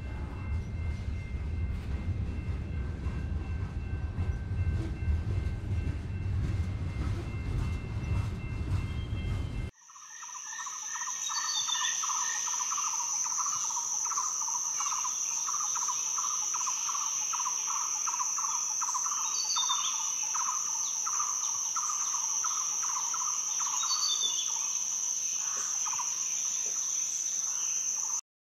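A train running with a heavy low rumble and faint steady whining tones, cut off abruptly about ten seconds in. It gives way to an insect chorus: a steady high-pitched buzz over a rapid pulsing trill, with a few short bird chirps.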